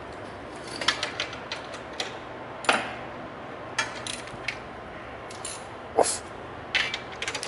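Metal hand tools clicking and clinking against the fittings of a horizontal bandsaw as it is worked on: about ten sharp knocks at irregular intervals, two of them louder, over a low steady hum.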